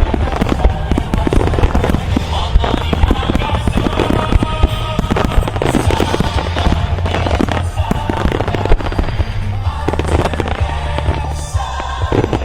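Rapid, continuous barrage of fireworks shells bursting and crackling in a starmine, with music playing along.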